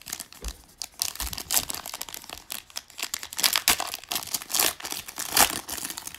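Foil wrapper of a Panini Prizm trading card pack being torn open and crinkled by hand, a continuous crackling with its loudest crackle about five and a half seconds in.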